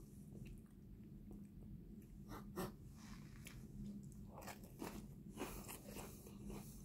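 Faint crunching and chewing of puffed corn Cheetos masala balls, a scatter of soft crisp crunches that come thicker a couple of seconds in and again over the second half.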